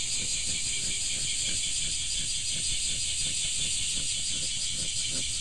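A steady, high-pitched, pulsing insect drone, such as cicadas or crickets, with faint low rustling underneath.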